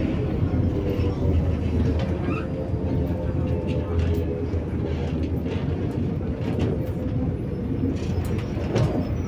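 Cabin noise of a MAZ-105 articulated city bus under way: a steady low drone of engine and road noise, with scattered clicks and rattles from the body.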